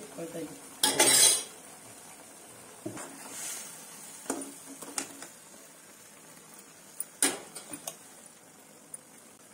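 Metal ladle knocking and scraping against a metal kadai as leaves and garlic are stirred. There is one loud clatter about a second in, then scattered single clinks.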